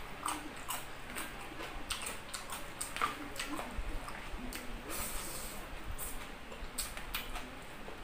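A person chewing food with the mouth open: wet lip-smacking and irregular sharp mouth clicks.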